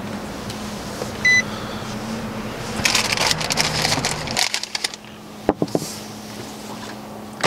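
A short electronic beep about a second in over a steady hum. It is followed by a burst of clicking and rattling around three seconds in, then a quieter hum with a couple of clicks.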